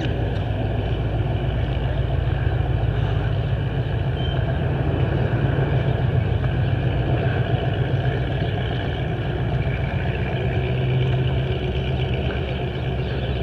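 Vehicle engines idling, a steady low rumble that goes on without a break.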